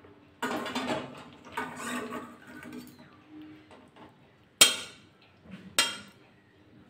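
Fish curry being tipped and scraped out of a steel kadai into a steel serving dish with a metal spatula, the food sliding and scraping for the first few seconds. Near the end come two sharp metal clanks about a second apart, the spatula knocking against the pans.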